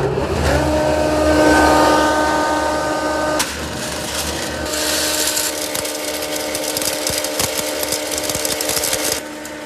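Small electric grain mill starting up and grinding dried corn into meal: a steady motor whine under a dense gritty hiss. The pitch shifts sharply about three and a half seconds in, and the sound lightens near the end.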